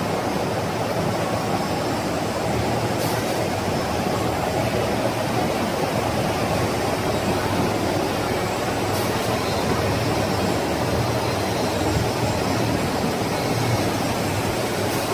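1988 Bobst folder-gluer running at production speed, with the box-stacker conveyor collecting folded cartons off its delivery end: a steady, even machine running noise with a low hum.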